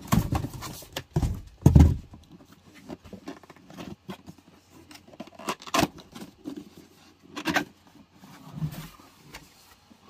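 Cardboard boxes being handled and opened: heavy thumps as a carton is lifted and set down in the first two seconds, then scraping and rustling of cardboard packaging with a few sharp clicks.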